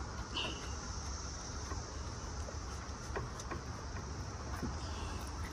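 Steady high buzzing of insects over a low rumble, with a few faint clicks as a motor-mount bolt is threaded by hand.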